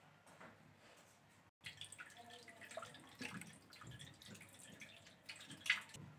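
Faint irregular clicks and taps of kitchen handling, with one sharper click near the end.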